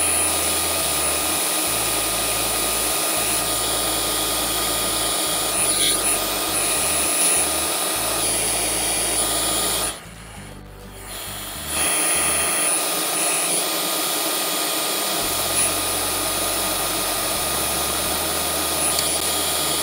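Root 4 CNC router spindle taking a facing pass across a hard oak slab, with the dust extractor running: a steady loud whine and hiss of cutting and suction. The noise drops much quieter for over a second about ten seconds in, then picks up again.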